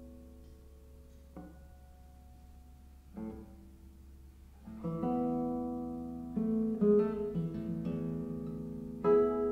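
Classical guitar played solo: a few soft, sparse notes left to ring, then from about five seconds in, louder and fuller chords.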